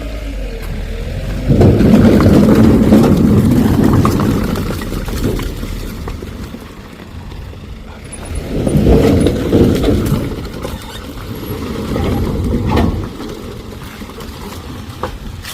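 A load of cut oak logs sliding and tumbling off a tipping dump truck bed, a rumbling clatter of wood in two long surges, the first starting about a second and a half in and the second in the middle, over the truck's engine running.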